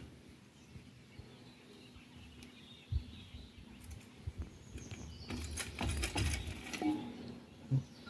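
Quiet handling sounds of small tools and timber at a wooden pallet: a single light knock about three seconds in, then a short cluster of clicks and rustling around six seconds.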